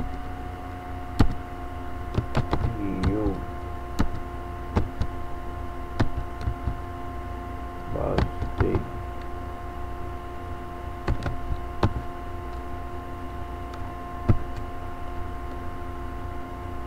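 Slow, irregular clicks of typing on a computer keyboard, one key at a time, over a steady hum.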